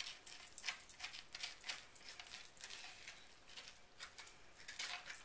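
Serrated grapefruit spoon scraping seeds and stringy pulp out of a halved butternut squash: a run of faint, quick scrapes, several a second.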